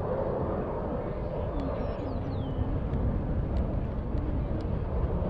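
Steady jet roar from an F-15C Eagle's twin Pratt & Whitney F100 afterburning turbofans as the fighter flies its display overhead.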